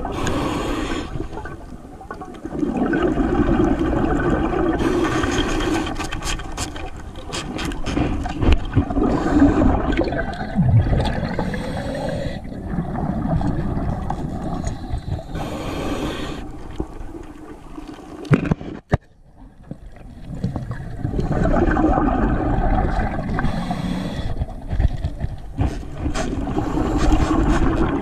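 Underwater sound of a diver's exhaled bubbles rushing past the camera in surges every few seconds, with short clicks and scrapes against rock between breaths.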